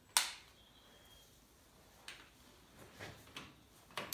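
A torque wrench and socket clicking and clinking as the cylinder head nuts of a Ferguson TED20 engine are tightened to half torque, 48 newton metres. The loudest metallic click, with a short ring, comes right at the start. Fainter clicks and knocks follow about two, three and four seconds in.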